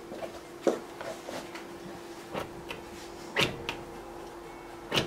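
A few short scrapes and taps of a palette knife working oil paint on a canvas, coming irregularly about a second apart, over a steady low hum.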